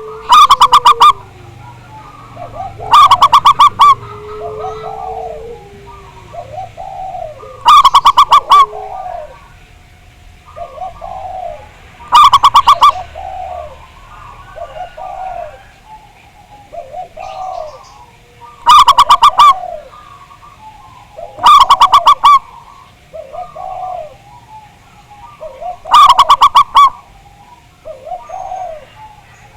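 Zebra doves (perkutut) cooing: a loud, rapidly pulsed coo roughly every four seconds, seven in all, with a quieter bird answering in short coo notes between them.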